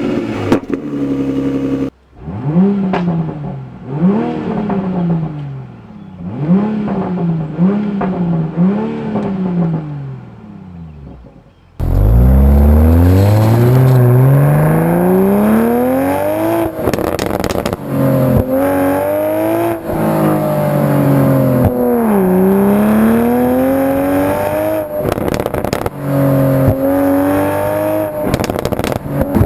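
2020 Toyota GR Supra's turbocharged engine through its stock exhaust: a quick series of about six free-revving throttle blips, each rising and falling. About twelve seconds in it switches to a hard acceleration, the engine pitch climbing steadily for several seconds, then further pulls and gear changes with sharp crackles and pops as the throttle lifts.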